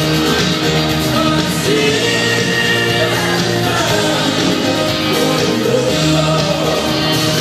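Pop-rock song playing, with a lead vocal sung over a band.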